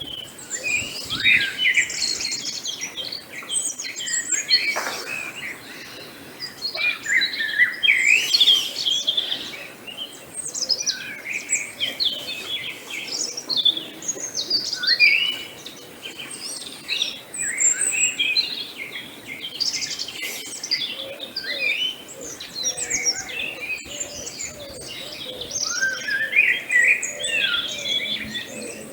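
Several wild birds singing and chirping together in a dawn chorus, with many overlapping short chirps, trills and whistled phrases.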